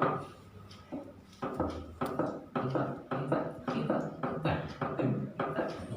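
An indistinct person's voice in short bursts, with breaks between phrases.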